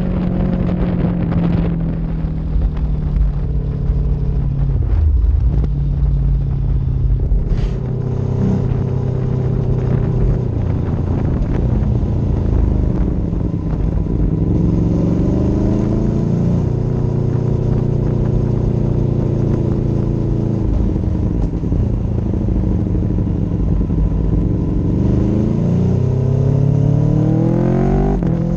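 Motorcycle engine heard from onboard while riding at road speed. The revs drop about five seconds in, climb again around halfway, and rise steeply near the end as it accelerates.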